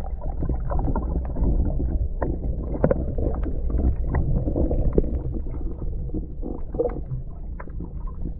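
Underwater ambience heard through a submerged microphone: a steady, muffled low rumble of water with scattered clicks and crackles, and no high end.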